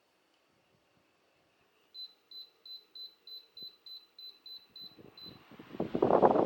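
Karos fan circulator's control panel beeping about eleven times, short high beeps about three a second, as its buttons are pressed. Then the fan spins up and its airflow comes in loud and gusty, buffeting the microphone.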